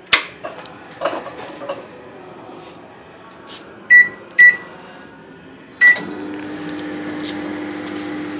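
Microwave oven being shut and started: a sharp clack and a few clicks, three short keypad beeps, then the oven running with a steady hum from about six seconds in.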